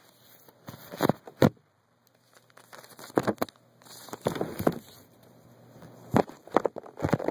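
Handling noise: fingers rubbing and knocking on the camera in irregular crackly scrapes and bumps, the loudest about a second and a half in.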